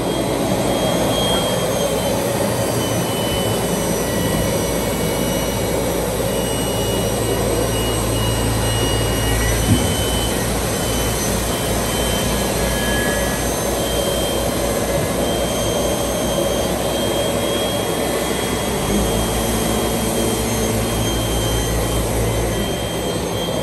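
MB Maschinenbau Roba Fentech brush sanding machine running with its brush heads working narrow profiles: a steady whir with high whines, and a low rumble that swells twice as the heads work the part.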